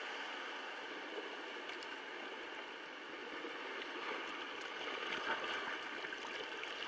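Sea water washing and gurgling among shoreline rocks in a steady wash, with a faint knock about five seconds in.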